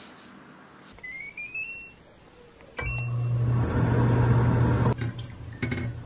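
An electric appliance beeping: a short rising electronic tone, then a click and a beep, followed by a steady low machine hum for about two seconds that cuts off suddenly, with a few light clatters after it.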